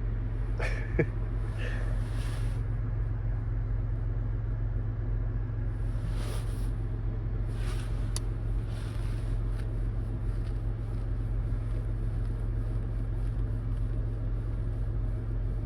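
A vehicle engine running steadily, a low even hum, with a sharp click about a second in and a few brief rustling noises.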